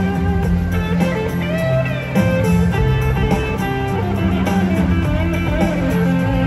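Background music with guitar, playing steadily.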